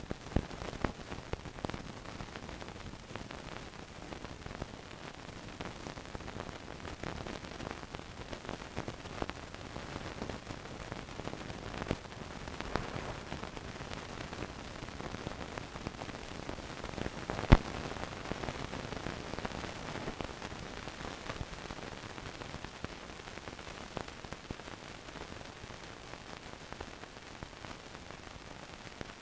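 Steady hiss and crackle of an old film soundtrack carrying no programme sound, with scattered faint clicks and one sharp pop a little past halfway.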